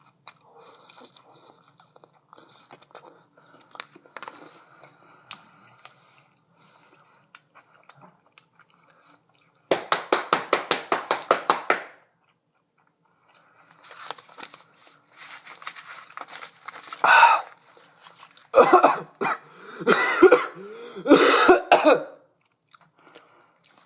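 A man chewing fries, then coughing and clearing his throat from the burn of ghost pepper seasoning. First come soft chewing clicks, then a quick run of about a dozen short bursts, then louder, uneven coughs and throat-clearing in the second half.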